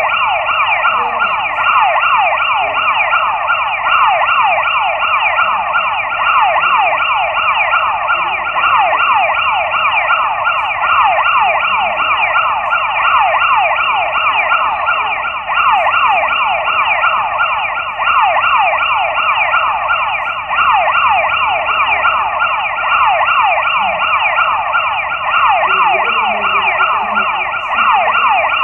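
Mobile phone emergency alert tone sounding continuously: a loud, siren-like sound of rapidly repeating falling sweeps.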